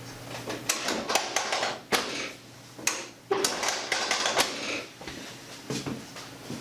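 An irregular run of sharp clicks and knocks from a chiropractic adjustment on the treatment table, thickest a little past the middle. The adjustment aims to even out a leg-length difference.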